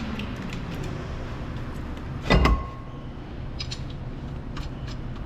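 One loud, sharp metal clank, with a brief ringing note after it, from brake parts and tools being handled on the car. A few light metallic clicks follow, over a steady low hum.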